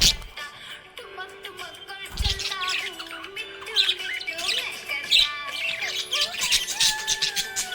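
Budgerigars chirping and squawking in quick, scattered calls over background music carrying a held, stepping melody. A low thump comes about two seconds in.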